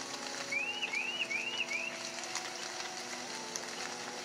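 A soft ambient backing bed of steady, overlapping drone tones over a faint hiss. A bird chirps four times in quick succession between about half a second and two seconds in.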